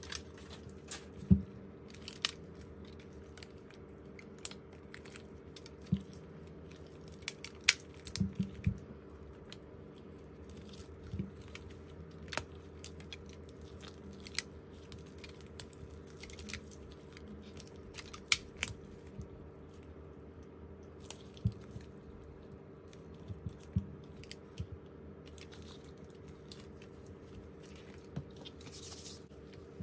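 Scattered sharp clicks and taps of small hand tools against phone parts during repair work, irregularly spaced, over a steady low hum. A brief hiss comes near the end.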